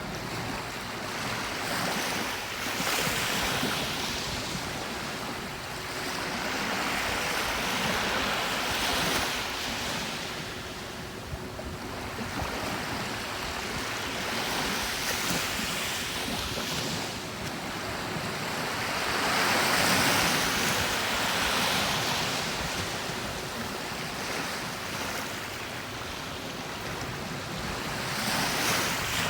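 Calm ocean waves breaking and washing onto a beach, the surf swelling and fading every few seconds.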